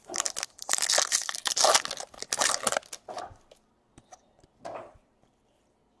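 Glossy chrome trading cards being shuffled and slid against each other by hand: a dense crinkling rustle for about three seconds, then a few light clicks and a short scrape.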